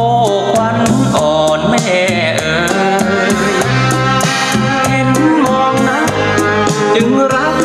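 A recorded song, a singing voice over drums and bass, played through Celestion SL6si bookshelf speakers driven by an RCF AM-30 vintage tube amplifier.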